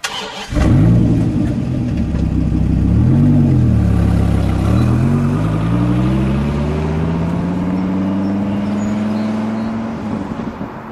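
Dodge Viper V10 engine starting up, revving briefly twice, then pulling away with its pitch rising steadily as it accelerates, growing fainter near the end.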